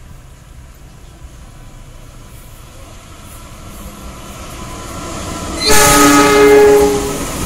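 A CC 206 diesel-electric locomotive hauling a passenger train approaches, its running noise building steadily. About five and a half seconds in, it gives one loud horn blast of about a second and a half as it passes close by. The train's rumble carries on after the horn stops.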